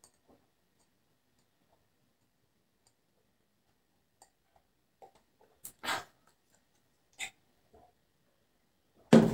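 A person drinking water from a glass: near silence for the first few seconds, then a few short swallowing and breathing sounds, with two louder short sounds near the end.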